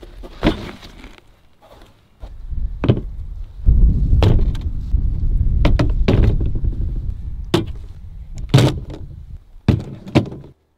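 Submachine guns and steel magazines being set down and shuffled on a plastic folding table: a series of sharp knocks and clatters, with a low rumble through the middle stretch.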